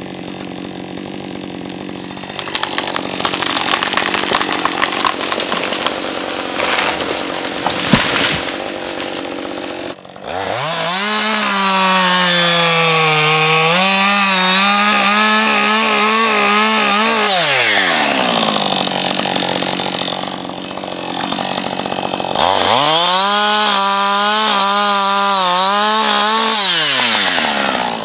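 Two-stroke Husqvarna 560 XP G chainsaw idling while a felled spruce cracks and crashes down, with a sharp thump about eight seconds in. The saw then revs to full throttle and cuts for about seven seconds, its pitch sagging as it takes the load, drops back to idle, and makes a second full-throttle cut of about five seconds near the end.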